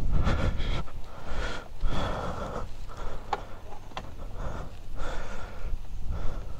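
Yamaha Serow 250's single-cylinder engine idling with its exhaust pipe broken off at the base: a low steady rumble under loose, uneven puffs from the open exhaust. Two sharp clicks come a little after three and four seconds in.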